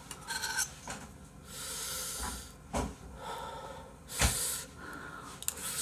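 A person eating with a spoon close to the microphone: breathy puffs and exhales, a sharp spoon click near the middle, and a louder knock followed by a puff of breath about four seconds in.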